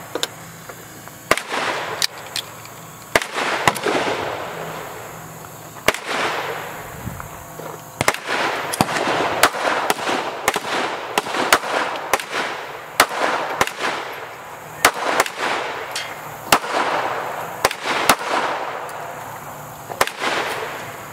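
Pistol gunshots, a Beretta Pico .380 ACP pocket pistol among them, each sharp crack trailing a short echo. A few spaced shots come first, then from about eight seconds in the shots come quickly, often less than a second apart.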